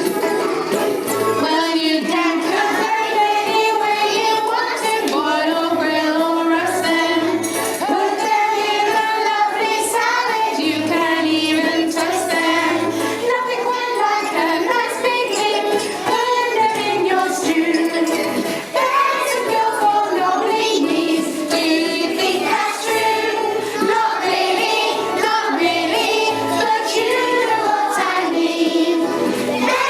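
A group of young children singing a song together over an accompanying backing track with a bass line and light percussion.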